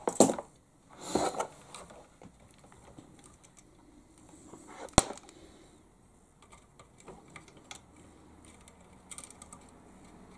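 Workbench handling noises while soldering small switch terminals: two short scraping rustles near the start, one sharp click about five seconds in, and scattered light ticks and taps after it.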